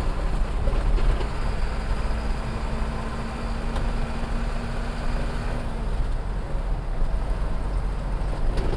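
Steady road noise of a motor vehicle being driven, heard from inside: a low engine and tyre rumble, with a faint steady hum that stops about six seconds in.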